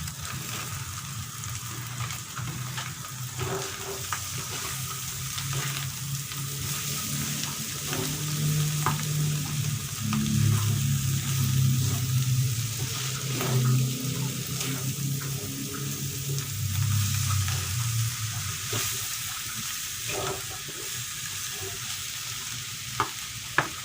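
Ground spice paste and turmeric leaves sizzling in hot oil in a pan, stirred with a spatula that scrapes and taps against the pan now and then. This is the paste being sautéed until fragrant.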